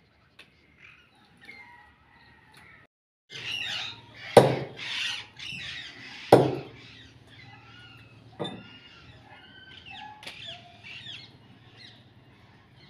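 Large chopping knife striking a wooden block as a chicken is cut into pieces: two loud chops about two seconds apart, then two lighter ones, with birds chirping and squawking throughout.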